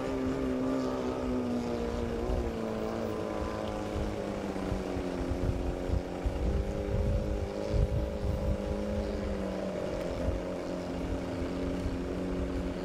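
18 HP outboard motor on a tunnel racing boat running flat out, a steady engine drone whose pitch sags slightly a few times.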